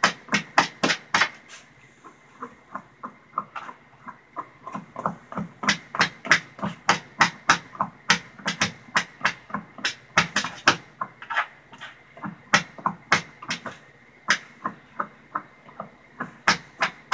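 A fast run of sharp taps and knocks, about three to four a second with a couple of short pauses, as a small dog works at her ball on a hard floor.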